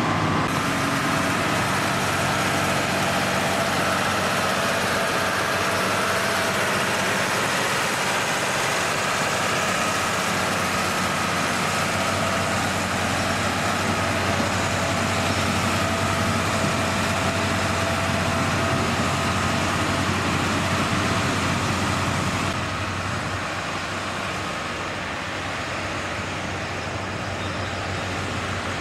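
Diesel engines of railway track-maintenance machines, among them a ballast regulator, running steadily as the machines roll slowly past on the rails. The sound eases off a little about two-thirds of the way through.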